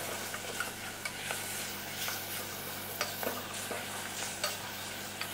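Chopped onion sizzling in oil in an aluminium saucepan, stirred with a wooden spoon that knocks against the pan a few times.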